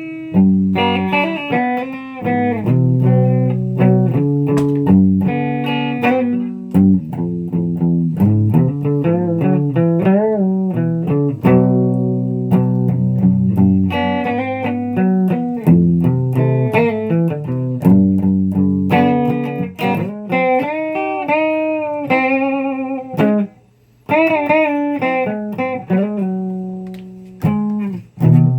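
Guitar music: plucked notes and short runs over a low repeating bass line, with bent, wavering notes a little past the middle and two brief breaks near the end.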